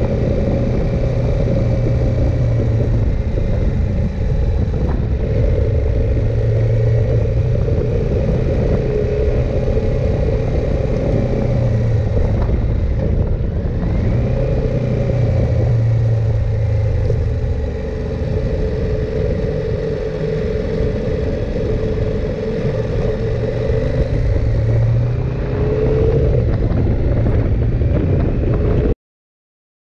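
KTM 890 Adventure R's parallel-twin engine running under way, its pitch shifting a little, over a low wind rumble. It cuts off suddenly near the end.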